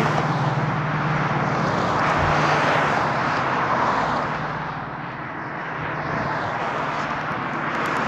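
Airplane flying past, a steady broad drone at first mistaken for a Camaro SS, mixed with the tyre noise of cars going by on the road. The noise swells a little early on and eases near the middle before rising again.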